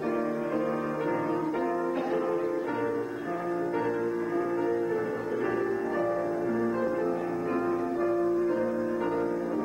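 Instrumental music on a keyboard, playing slow chords with long held notes at a steady level.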